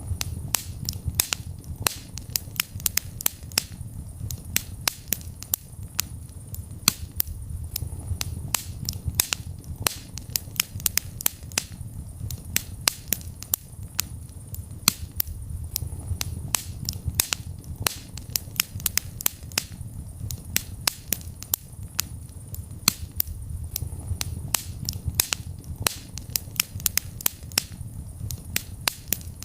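Wood fire in a fireplace crackling and popping: many sharp irregular snaps over a low steady rumble of the flames.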